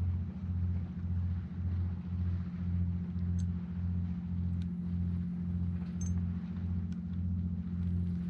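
A low, steady engine drone that throbs evenly about three times a second, with a few faint clicks over it.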